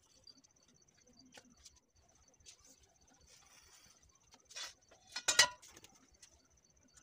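A thin hand tool scraping and ticking against a plastered wall while a design is marked out. It makes faint short scrapes and clicks, with the loudest scrape about five seconds in, over a steady faint high whine.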